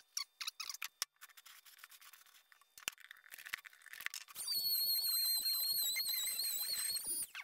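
Light scrapes and clicks of a blade on a plastic bucket lid, then a Dremel rotary tool with a diamond cutting wheel starts about four seconds in, running with a high, slightly wavering whine as it cuts the plastic, and stops just before the end.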